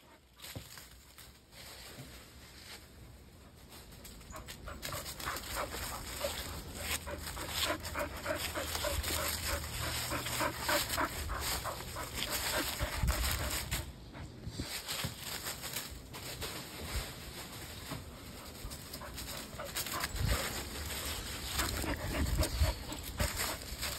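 Standard Poodle panting close to the microphone, a long run of repeated breaths, with low bumps near the end as the dog noses against the phone.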